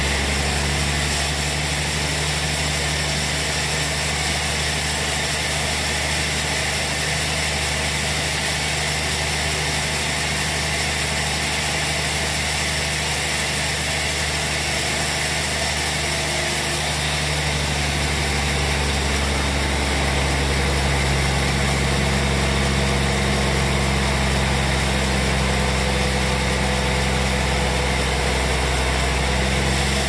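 Band sawmill running, its blade sawing lengthwise through a large teak log, with steady motor hum and cutting noise. The low hum grows stronger a little over halfway through.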